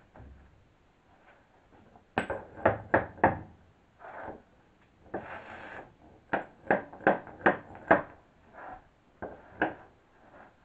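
Claw hammer knocking on the edge of an OSB tongue-and-groove subfloor panel to drive the joint together: a quick run of about five sharp wooden knocks, a short scrape, then another run of five and a few softer knocks near the end.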